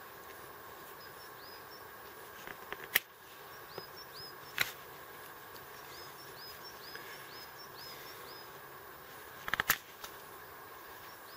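Quiet woodland background with a small bird repeating short, high chirps that drop in pitch. A few sharp clicks of a knife working a wooden stick cut in, with a quick cluster of them near the end.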